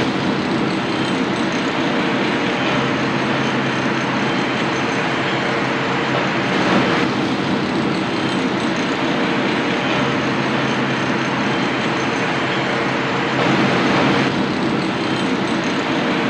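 Steady, loud New York City ambience: a continuous rumble with a low hum under it. It swells briefly about seven seconds in and again around fourteen seconds.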